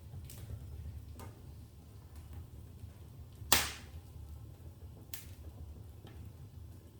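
Wood fire in a fireplace crackling, with a few sharp pops spaced a second or more apart; the loudest pop comes about three and a half seconds in, over a low steady rumble.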